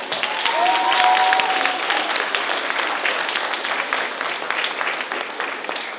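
An audience applauding: a dense patter of many hands clapping that swells about a second in and then slowly tapers off. A short held note sounds over it near the start.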